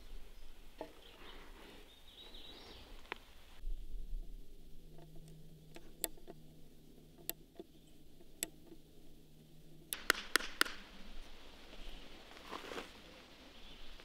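Quiet outdoor background with a few separate sharp clicks and taps, then a quick run of four sharp taps a little past the middle, from hands handling small hard parts at a timber post.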